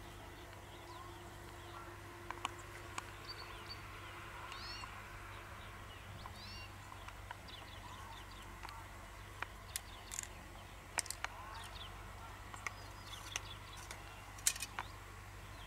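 Many short, high chirps and squeaks from small birds, with scattered sharp clicks that come more often in the second half, over a faint low hum.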